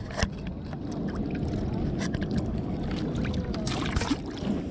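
Water rushing through a spillway, a steady low rumbling wash, with a few sharp clicks and rustles of handling over it.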